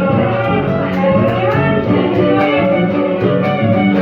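Instrumental passage of an Argentine gato: strummed guitar keeping a steady beat of about three strokes a second under a melody line, with no singing.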